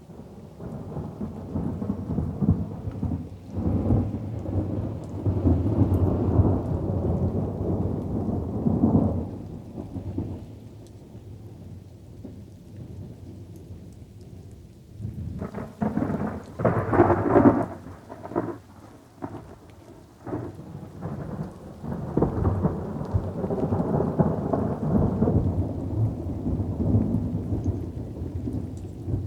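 Thunderstorm: light rain falls steadily while thunder rolls in three times, a long rumble early on, a sharper crackling peal around the middle, and another long rumble near the end.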